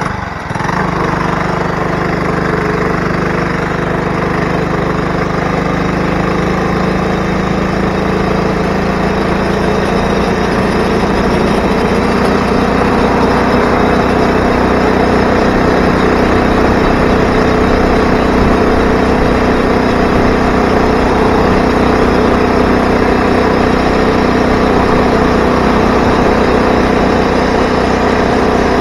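Motorized bicycle's 80cc two-stroke engine running steadily and loudly. Its pitch rises a little a few seconds in and then holds.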